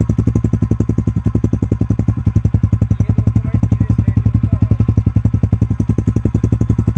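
TVS Radeon BS6's single-cylinder four-stroke engine idling steadily after some 20,000 km of use, its exhaust giving an even, rapid putter of about a dozen beats a second.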